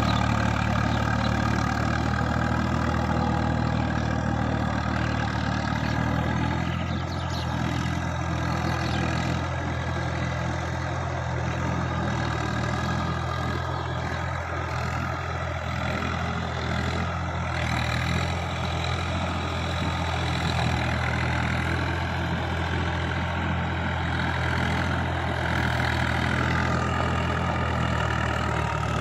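Tractor diesel engine running steadily as it drags a leveller through a flooded rice paddy.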